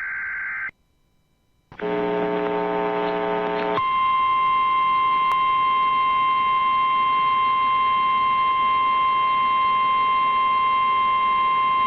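Emergency Alert System alert sequence: the end of a short high data burst, a one-second gap, a harsh low buzz lasting about two seconds, then the steady 1050 Hz weather-radio warning tone held for about eight seconds.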